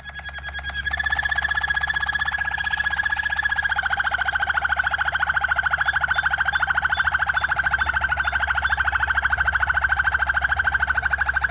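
Malinois waterslager canary singing one long trill: a low, steady tone pulsing rapidly without a break, building up over the first second.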